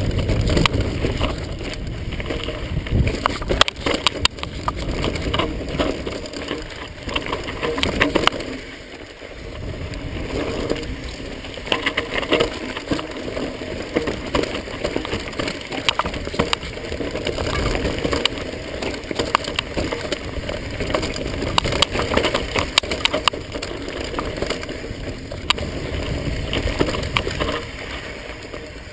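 Mountain bike descending a rough dirt singletrack: tyres rolling and skidding over dirt and roots under a constant rumble, with the bike rattling and clattering in a dense stream of irregular clicks and knocks. The racket eases for a moment about nine seconds in.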